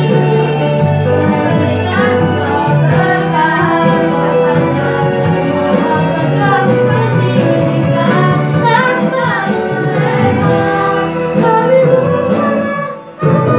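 A song: a high singing voice carrying a melody over an instrumental backing with steady bass notes. The music drops away briefly just before the end.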